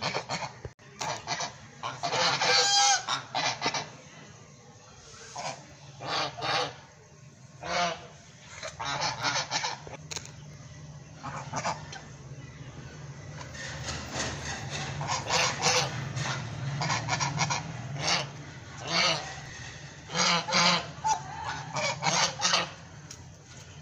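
Domestic white geese honking repeatedly in short bursts of calls, with quieter gaps between them.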